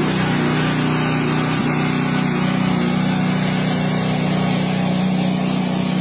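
A machine running steadily: a motor's even hum under a strong hiss, with no change in speed.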